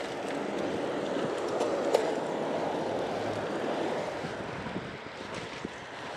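Steady rushing noise of riding a bicycle, tyres and wind, swelling in the middle and easing again, with one sharp click about two seconds in.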